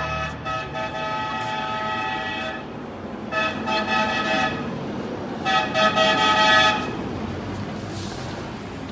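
Truck air horn sounding three long blasts, the first already going at the start and the last the loudest, over the low rumble of a Scania 112 truck's engine as it approaches.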